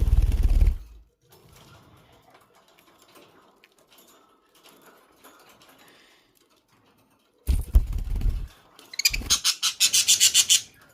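Pet budgerigars chattering in rapid, high chirps for the last two seconds or so. Before that a heavy low thump at the start and a couple more about three-quarters of the way through.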